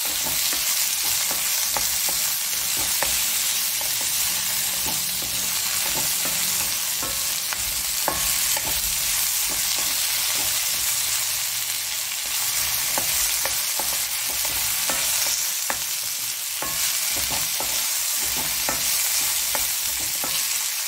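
Shallots, garlic, tomato and dried red chillies sizzling steadily in oil in an iron kadai, stirred with a wooden spatula that scrapes and taps against the pan again and again.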